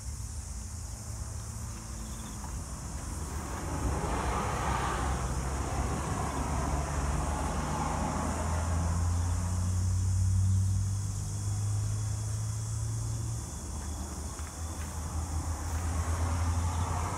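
A motor vehicle engine running with a low, steady hum that shifts about thirteen seconds in.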